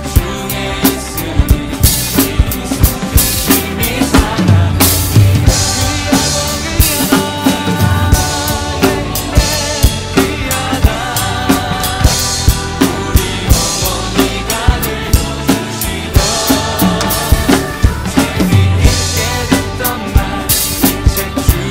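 Acoustic drum kit playing a steady beat of kick, snare and cymbals along with a hymn backing track, with cymbal crashes every few seconds.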